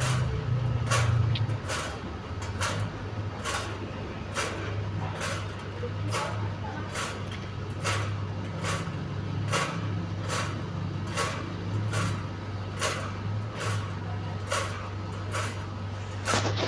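Fan turbine running with a steady low hum and a short, regular noise repeating a little more than once a second: the strange noise it is emitting.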